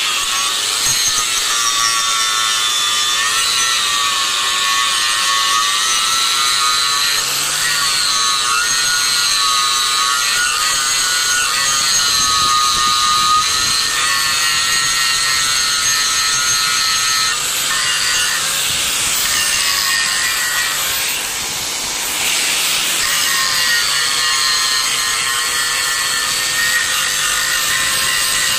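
Angle grinder grinding down a weld on thin sheet steel, running steadily under load with a high whine that wavers as the disc is pressed in, easing slightly for a moment about three-quarters of the way through.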